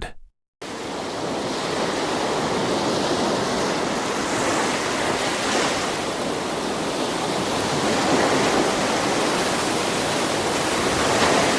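Steady rushing noise of storm wind and water, starting abruptly about half a second in.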